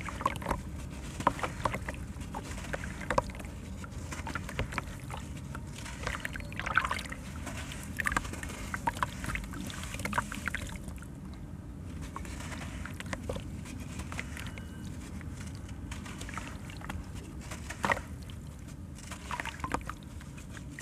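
Hands crumbling wet charcoal-sand-cement chunks into a tub of water: sloshing and splashing, with irregular sharp crunchy crackles as pieces break apart and grit pours through the fingers. A steady low background noise runs underneath.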